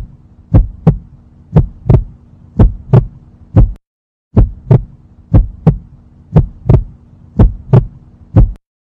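Heartbeat sound effect: paired low thumps, lub-dub, about once a second over a faint steady low hum, with a short pause about four seconds in.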